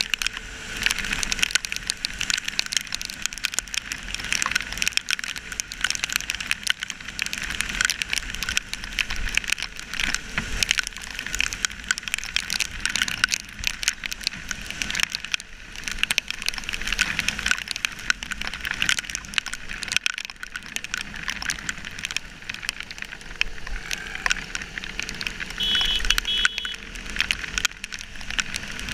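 Heavy rain spattering and crackling on a GoPro camera housing on a motorcycle riding through a downpour, with rushing wind and wet-road traffic noise.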